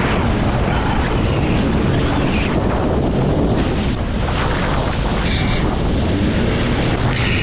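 Jet ski engine running under power at speed, with heavy wind buffeting the microphone.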